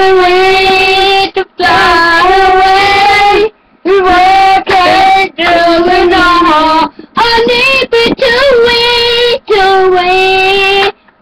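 A child singing loud, high held notes without clear words: about six long notes, each lasting a second or two, separated by short breaks.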